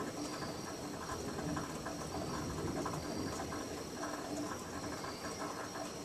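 Steady night chorus of calling frogs and insects: an unbroken high-pitched trill over patchy, pulsing calls lower down, with a faint hiss beneath.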